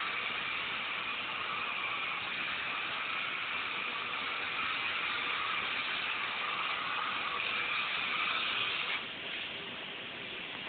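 Polyurethane spray-foam gun spraying with a steady hiss, which cuts off suddenly about nine seconds in; a fainter steady hiss goes on after.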